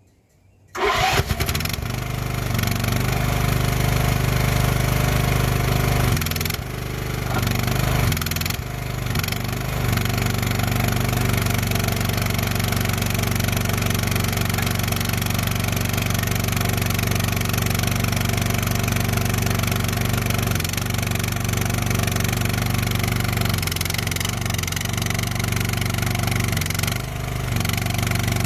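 Chinese skid steer's engine starting up about a second in, then running steadily, with a couple of brief dips in speed.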